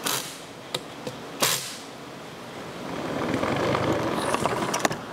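Assembly-line workshop noise: a few sharp metal clicks and a short burst of hiss in the first seconds, then a steadier rushing noise that builds after about three seconds, with more quick clicks near the end.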